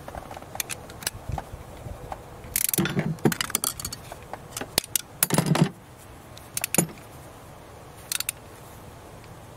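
Torque wrench ratcheting on a socket extension to tighten a diesel injector's hold-down bolt: several short bursts of metallic clicking and rattling, the longest about three seconds in and another around five and a half seconds.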